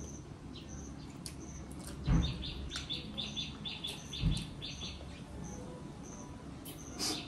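Small birds chirping in the background: a short high peep repeats steadily, and about two seconds in a quick run of chirps, about four a second, goes on for a few seconds. Two dull low thuds, about two and four seconds in, are the loudest sounds.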